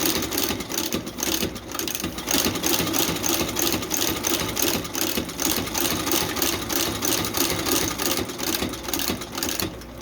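Curved needle sole-stitching machine running steadily, its needle cycling in a fast, regular rhythm over a motor hum as it sews a slip sole onto a boot.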